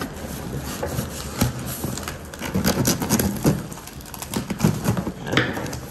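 Cardboard shipping box being handled and pulled at while it is opened: irregular knocks, taps and rustles of cardboard, with several sharper knocks in the middle.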